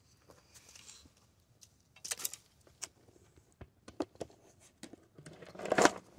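Footsteps and handling in dry leaf litter: a string of irregular sharp crunches and clicks, then a louder rustling burst near the end.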